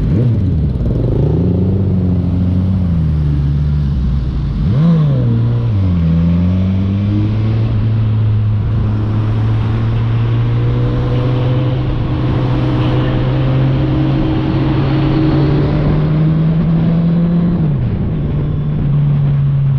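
Suzuki Katana motorcycle with an Orion aftermarket exhaust, riding. The engine note drops and climbs through gear changes in the first few seconds, with a quick rev about five seconds in. It then holds a steady note that climbs slowly before easing off near the end.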